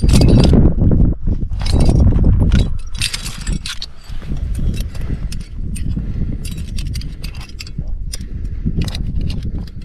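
Climbing gear clinking: carabiners and quickdraws knocking together in short metallic clicks, thickest in the second half, over a heavy uneven rumble of rubbing on the microphone.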